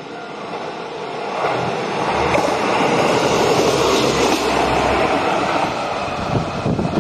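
Shimabara Railway express diesel railcar passing close at speed: a rush of air and wheel noise with a low engine rumble, building from about a second in to a peak over the next few seconds, then a run of sharp knocks near the end as it moves away.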